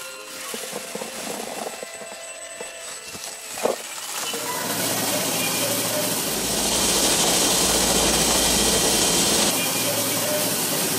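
Light clattering and one sharp knock. Then, about four seconds in, machinery starts running steadily with a low hum and a loud hiss, its low rumble swelling for a few seconds before easing back.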